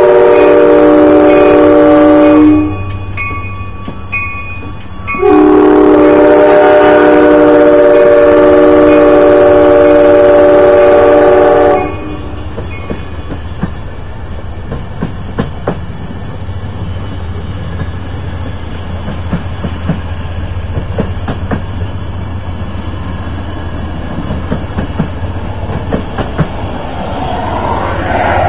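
Amtrak Blue Water passenger train departing: the diesel locomotive's multi-chime air horn sounds the end of one blast, then after a gap of under three seconds a long blast of about six seconds. After that comes the locomotive's low drone and a steady run of wheel clicks over rail joints as the passenger cars roll past, growing a little louder near the end.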